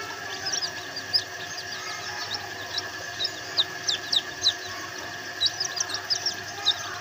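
Silkie and bantam chicks peeping: many short, high chirps, each falling in pitch, coming in quick scattered clusters.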